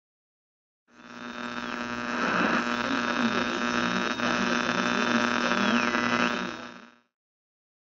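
Propeller aircraft engines running: a steady drone with a deep hum that fades in about a second in and fades out near the end.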